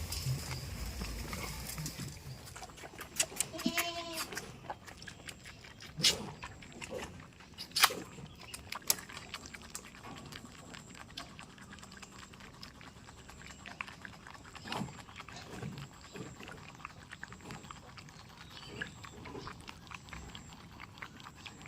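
Goats on a farm: one short, wavering bleat about four seconds in, then scattered sharp knocks and rustling.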